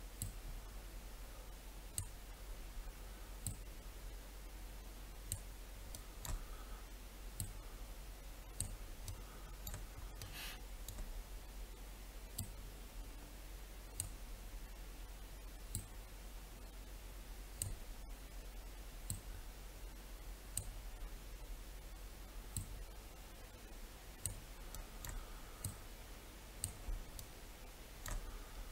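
Faint, irregular computer mouse clicks, roughly one every second or two, over a low steady hum.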